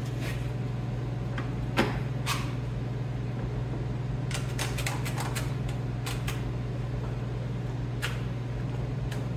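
Scattered clicks and knocks of small clamps being handled and fitted to a plastic fender flare, the loudest about two seconds in and a quick cluster around the middle, over a steady low hum.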